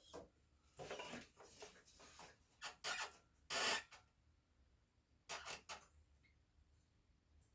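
Faint, short strokes of wood rubbing and scraping, about eight of them, the loudest about three and a half seconds in and a quick group of three near the end.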